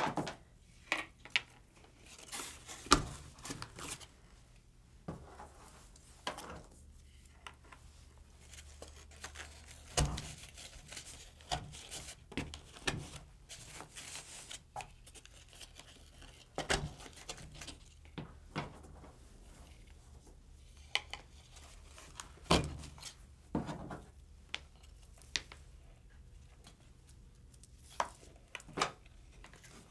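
Irregular handling sounds of beads and cord being threaded through the slits of a cardboard abacus frame: light clicks, taps and rustles, with a few sharper knocks scattered through.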